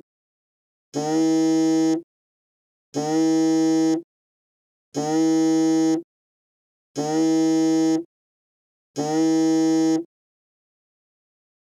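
Mobile phone on vibrate, buzzing in a steady pattern: five buzzes about a second long, one every two seconds, with silence between.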